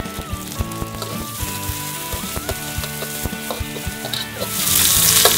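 Chopped garlic and bird's eye chilies sizzling in hot vegetable oil in a wok, with short knocks of a spatula as they are stirred. The sizzle grows much louder near the end.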